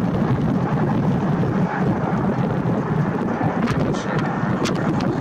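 Gusty wind buffeting the camera microphone, a steady low rumbling noise. A few light clicks come about four seconds in.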